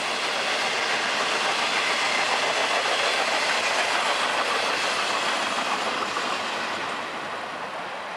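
Empty intermodal flatcars at the tail of a Florida East Coast freight train rolling past, wheels running over the rails. The sound fades away over the last couple of seconds as the end of the train goes by.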